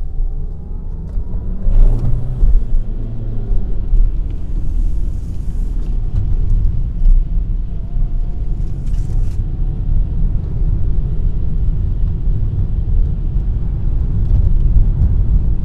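Toyota Corolla driving on a wet training track, heard from inside the cabin: a steady low engine and road noise, with short hissing bursts about two, five and nine seconds in.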